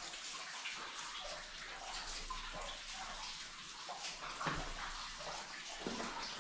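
Water running and dripping in a mine tunnel: a steady wash of trickling with scattered small drips and splashes, and a couple of louder knocks or splashes in the second half.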